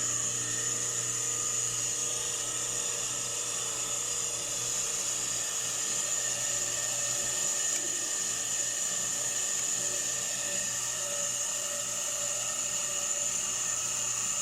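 Brake lathe resurfacing a front brake rotor disc on automatic feed: a steady high whine from the turning rotor and the cutting bit shaving its metal face. The rotor is being skimmed to cure brake squeal.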